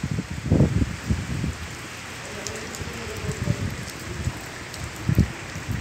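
Rain falling steadily, with gusts of wind buffeting the microphone in low rumbling surges every second or so.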